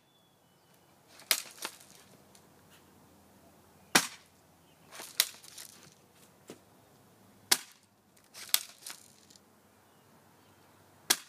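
Airsoft pump-action shotgun being fired and worked: sharp snapping shots roughly every three seconds, with lighter clacks of the pump action between some of them.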